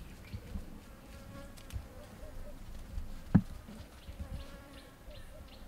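A flying insect buzzing, a faint wavering drone that fades in and out, with one sharp thump about three and a half seconds in.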